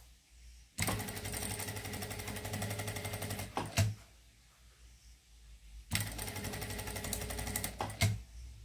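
Sewing machine stitching a ribbon trim onto cotton fabric in two runs of fast, even stitching of about two to three seconds each, each run ending with a sharp knock.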